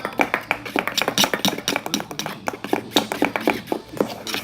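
Slime mixture of glue and soap foam being stirred in a bowl: a quick, irregular run of clicks and taps from the utensil against the bowl, several a second.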